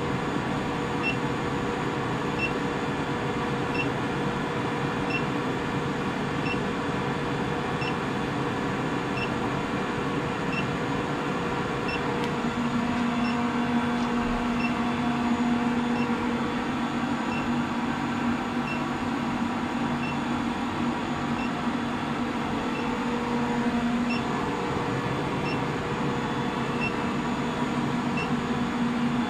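Steady electrical hum of a 25 kW induction heater running on the foot pedal, heating rivets in a crucible inside its coil, with faint ticks about once a second. A lower hum joins a little before halfway and drops away again about four-fifths of the way through.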